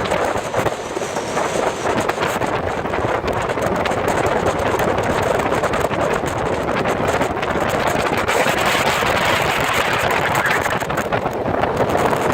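Wind rushing and buffeting over the microphone aboard a World Cat 330TE power catamaran running at speed, with steady engine and water noise underneath.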